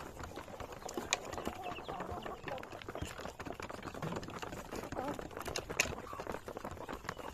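Chickens clucking in short calls over a steady scatter of small taps and scratches.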